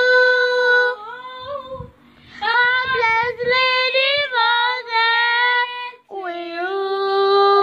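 A girl's voice singing unaccompanied, in three phrases of long, drawn-out held notes, with short breaks about a second in and again about six seconds in.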